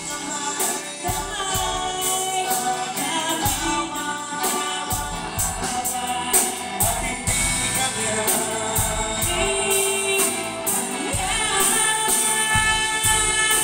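Live band playing a song with a woman and a man singing over electric guitars and bass guitar, with a steady beat.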